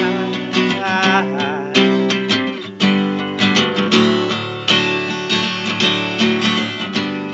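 Acoustic guitar strummed in a steady rhythm, chords ringing between the strokes, picked up by a webcam microphone.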